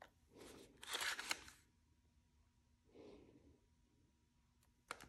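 Handling noise from an iPhone clamped in a ShiftCam ProGrip being gripped and twisted from upright to sideways: a short rustling scrape about a second in, a softer one near three seconds, and a single click near the end.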